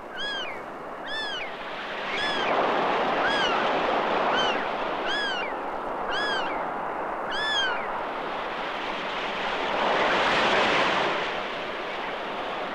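Sea surf breaking and washing on a beach, swelling and easing, with a seagull crying about once a second: eight short calls, each rising and falling in pitch, over the first eight seconds.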